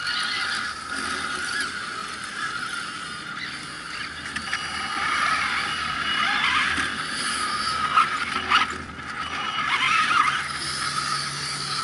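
Small electric motors and geartrains of radio-controlled scale off-road trucks, an Axial Yeti among them, whining with wavering pitch as they crawl up a dirt slope. A couple of sharp knocks come about two-thirds of the way through.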